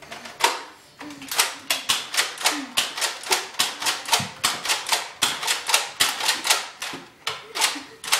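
Nerf foam-dart blasters being fired in quick succession: a rapid run of sharp clacks, about three a second, starting about half a second in.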